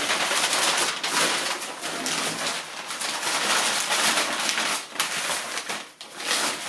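Packaging rustling and crinkling steadily as a roller part is unwrapped and handled, with a short lull near the end.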